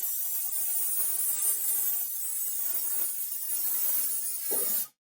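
Rotary tool running and grinding away at an aluminium heatsink, its whine wavering in pitch as the bit bites. It cuts off abruptly near the end.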